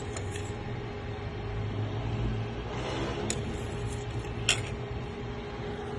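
A steady low mechanical hum, with two short sharp clicks about three and four and a half seconds in, the second one louder.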